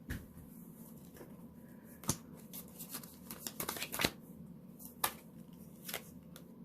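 Tarot or oracle cards being handled and shuffled to draw the next card: papery rustling with several sharp card snaps and taps, the loudest about two, four and five seconds in.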